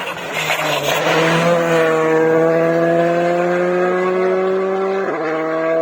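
Rally car engine pulling hard under full throttle as it passes, its pitch climbing slowly through one gear, with a gear change about five seconds in. A burst of rough noise comes in the first second.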